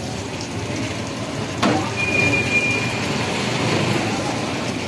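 Street traffic ambience: a steady mix of vehicle engines and road noise, with a sharp knock about a second and a half in and a brief, thin, high steady tone a little later.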